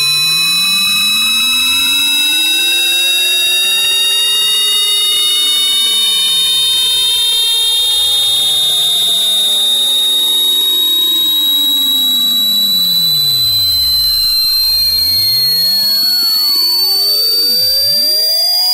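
Very high-pitched, annoying electronic tone. It is a loud, steady whine that slowly rises, with many fainter tones sweeping up and down beneath it.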